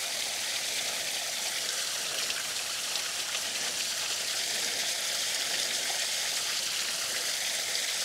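Tiny creek waterfall, about a foot high, splashing steadily over rocks close by: a constant hiss of falling water.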